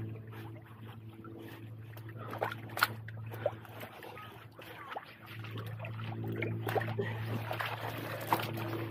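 Shallow seawater trickling and splashing, with sharp knocks and clicks of stones as rocks are searched and shifted by hand in a low-tide pool. Under it runs a steady low engine hum that fades out about half a second in and comes back about five seconds in.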